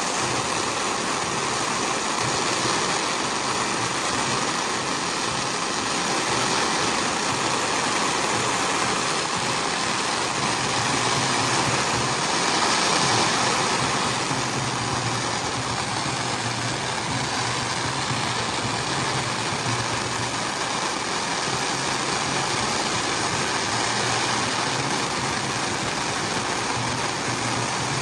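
An engine idling steadily, with a low hum under a haze of outdoor noise.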